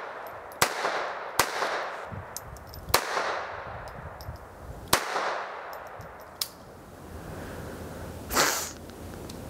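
Phoenix Arms HP22A .22 LR semi-automatic pistol firing: four sharp shots, unevenly spaced over the first five seconds, each with a short echo. A fainter crack follows about six and a half seconds in, and a brief rush of noise comes near the end.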